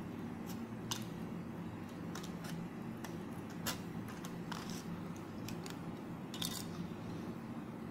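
Scissors snipping through the thin plastic of a CD: a dozen or so irregular sharp snips and clicks, over a steady low hum.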